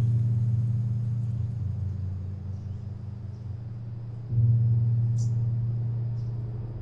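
Low, gong-like bass tones of a film score: each starts suddenly and slowly fades, with a new one struck about four seconds in.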